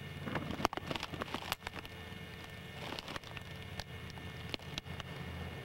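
Grass blades brushing against a camcorder lying in the grass, giving scattered crackles and clicks, thickest in the first couple of seconds, over a low steady rumble.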